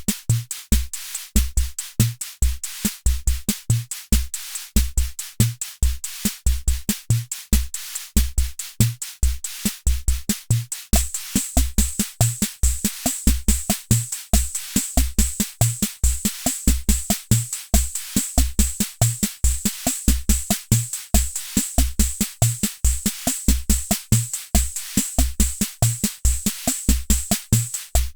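Hammond Auto-Vari 64 analog drum machine playing one of its preset rhythms: a steady, repeating beat of deep bass-drum thumps under fast, hissy hi-hat and cymbal ticks. The high ticks get brighter about a third of the way through.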